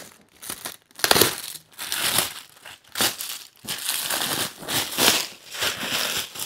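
Crinkly packaging being pulled open and handled, in repeated bursts of rustling.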